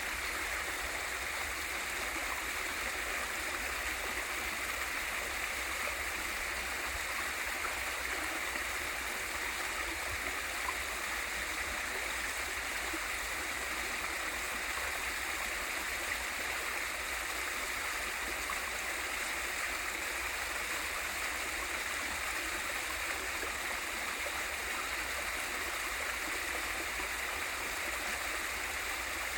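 Small waterfall in a mountain valley stream: water pouring and rushing in a steady, unbroken hiss.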